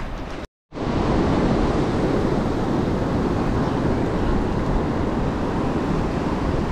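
Steady wind noise buffeting a GoPro HERO9 Black's microphone while riding a mountain bike. It drops out completely for a moment about half a second in, then carries on steadily.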